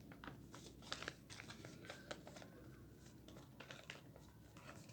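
Faint rustling and crinkling of a sheet of paper being folded, with scattered small crackles.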